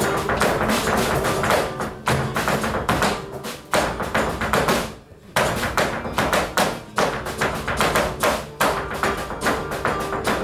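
Flamenco footwork: rapid heel and toe stamps on a wooden stage, over flamenco guitar music. The stamping stops briefly about five seconds in, then starts again.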